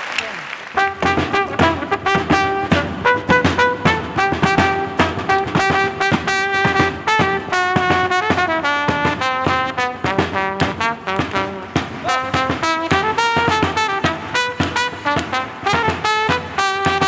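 A small live band plays: a trumpet carries the melody over strummed acoustic guitar and a drum keeping a quick, steady beat. The music comes in under a second in, as applause fades.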